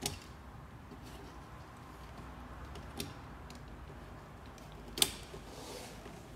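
Three sharp clicks a couple of seconds apart, the last and loudest followed by a brief soft rustle. They come from hand work on a stripped car door panel with a small hand tool and a foil-backed deadening sheet.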